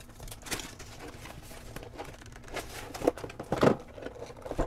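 Cardboard box and its paper and plastic packaging being handled as the box is opened: irregular rustling and crinkling, with two louder rustles about three and three and a half seconds in.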